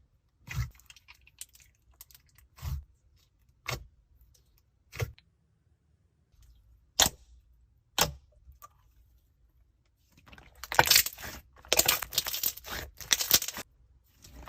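Short, crisp crackling clicks, roughly one a second, turning into a dense run of rapid crackling about ten seconds in.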